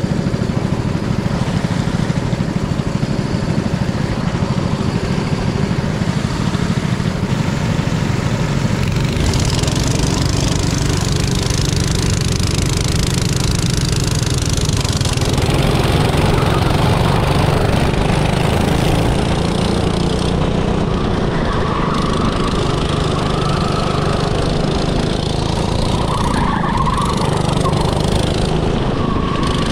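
Small go-kart engine running steadily, the sound filling out and growing slightly louder about halfway through.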